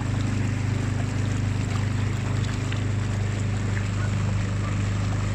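Small motorboat's motor running steadily: a constant low hum under an even hiss.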